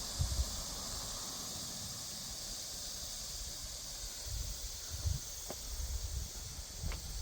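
Steady high-pitched outdoor hiss of countryside ambience, with low rumbling gusts of wind on the microphone on and off in the second half.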